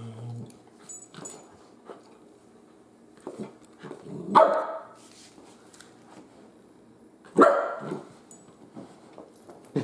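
Dogs at play: two loud barks about four and seven seconds in and a short one at the very end, with quieter short sounds in between. The barks are playful, not aggressive.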